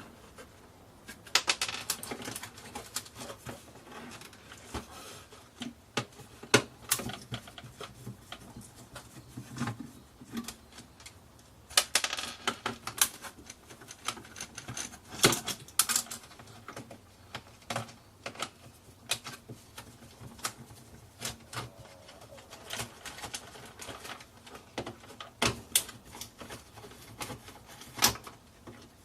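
Clicks, knocks and light clatter of a plastic clock radio being dismantled by hand: housing parts and small hard pieces tapping on each other and the work surface, in irregular bursts with a few sharper knocks.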